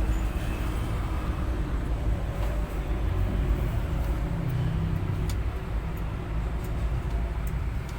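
Hino 500 truck's diesel engine running steadily, a low rumble with a few faint ticks.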